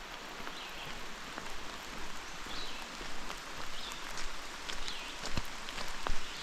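Steady light rain pattering, with individual drops landing close by as sharp little ticks. A few short high chirps recur about once a second over the patter.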